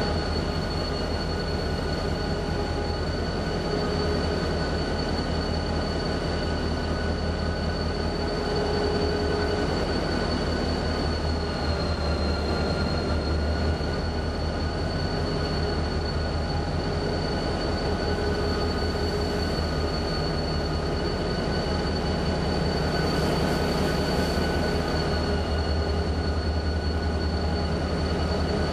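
Roundhouse turntable slowly turning under a 4-6-0 Camelback steam locomotive: a steady low drive hum with a thin high whine held over it.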